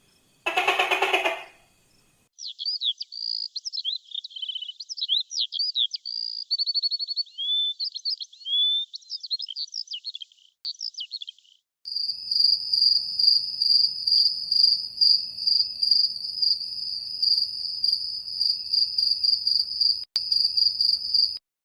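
A short loud call just after the start, then a songbird singing quick, varied chirps and trills for about nine seconds, then a cricket chirping in a steady, evenly pulsed high trill that stops just before the end.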